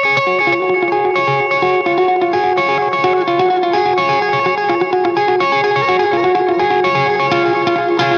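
Electric guitar with P90 pickups played clean through a Dover DA-50 amplifier: a continuous run of notes and chords that ring on into each other, starting abruptly and keeping a steady loudness.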